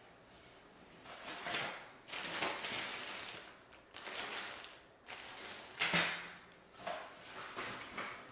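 Unboxing handling noise: a clear plastic accessory bag of cables crinkling and rustling, and the metal panels of a Jonsbo N2 NAS case scraping as they are handled, with a sharp knock about six seconds in.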